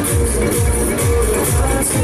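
Loud electronic dance music from a fairground ride's sound system, with a steady kick drum a little over two beats a second and hi-hats on top.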